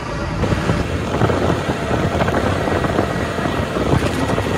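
Wind buffeting the microphone on a moving open vehicle, over a steady rumble of engines and road traffic.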